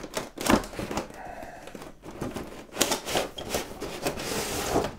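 A large plastic blister tray being pulled out of a cardboard box: a run of clicks, crinkles and scrapes, with a longer rustling scrape near the end.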